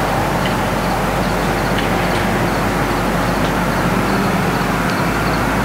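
Steady outdoor background noise: an even, continuous rush with faint, brief high chirps scattered through it.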